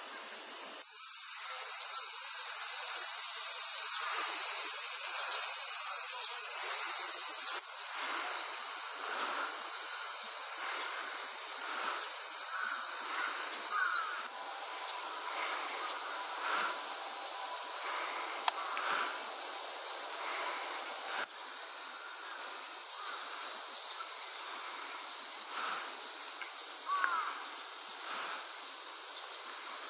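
Summer cicada chorus: a dense, steady high-pitched drone whose level shifts abruptly a few times. Faint short bird chirps come through underneath now and then.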